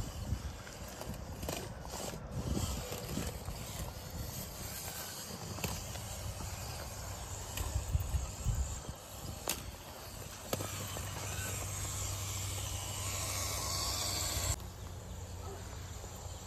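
RC rock crawler clambering over granite rocks: tyres and chassis knock and scrape on the stone, with one sharp knock partway through. Under it runs a steady outdoor hiss, which changes abruptly near the end.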